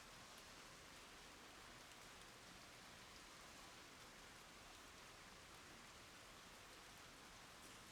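Faint, steady rain falling on wooden boards and standing water, with a few faint drop ticks.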